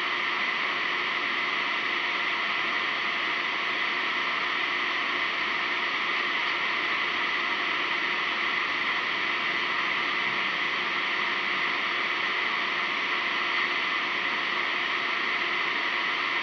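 Steady, unchanging hiss with a faint high hum running through it, with no distinct events.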